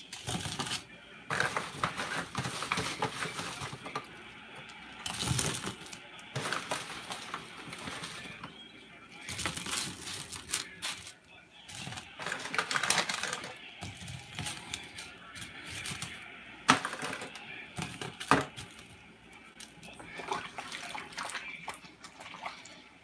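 Tater tots being picked out of an aluminium foil pan and dropped onto plates by hand: irregular light clicks, taps and rustles, with crinkling of the foil pan and a couple of sharper knocks.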